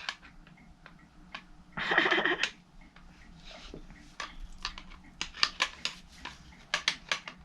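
Clicks, taps and light knocks of plastic and metal parts being handled while a vintage Hoover vacuum cleaner is taken apart, with a short rustling burst about two seconds in and a quick run of clicks in the second half.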